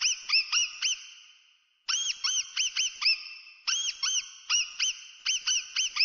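Mouse squeaking sound effect: quick runs of short, high squeaks, about five a second. There is a pause of about a second after the first run, then the squeaks resume and run on almost without a break.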